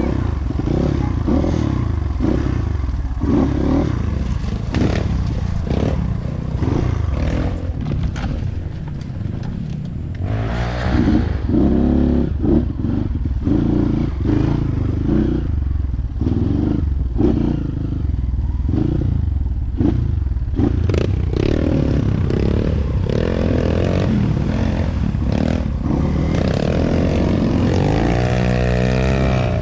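Trail motorcycle engine running at low revs, rising in pitch as the throttle opens about a third of the way in and again near the end. Frequent clatter and knocks are heard as the bike rides over rough, slippery trail.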